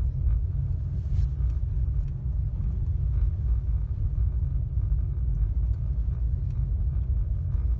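Low, steady road and engine rumble heard from inside a moving car's cabin.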